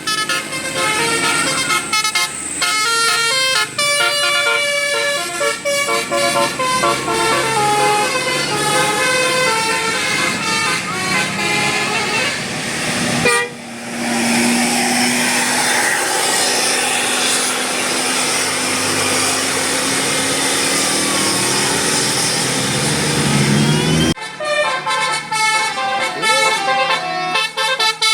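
A bus's multi-note telolet basuri air horn playing a melody of quick stepping notes. About halfway through it cuts off suddenly and gives way to a stretch of noise with a low droning tone. The horn melody comes back for the last few seconds.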